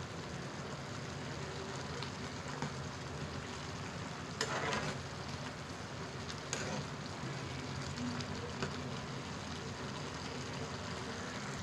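Pan of instant noodles bubbling at the boil, with a spoon stirring through them and scraping the pan twice near the middle.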